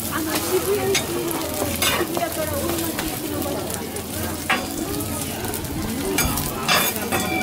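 Okonomiyaki sizzling on a hot teppan griddle, with metal spatulas scraping and clacking on the plate as they press and cut the pancakes; several sharp scrapes stand out over the steady sizzle.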